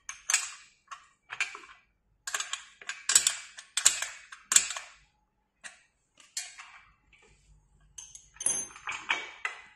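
Hex key clicking and clinking against metal as a hex screw is turned to fasten an elliptical trainer's pedal to its pedal bracket. The sharp, irregular clicks come about once or twice a second, with a short pause and then a quicker run near the end.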